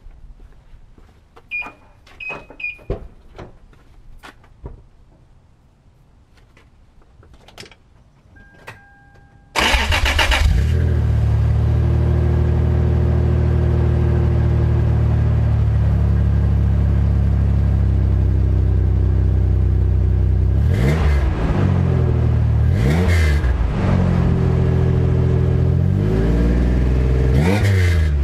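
A 1999 Toyota Tacoma's 3.4-litre V6 starts about nine seconds in and idles, then is revved up and let fall back three times. Its exhaust runs through new straight pipe into a Flowmaster muffler in place of a stolen catalytic converter. Before the start there are a few clicks and short beeps.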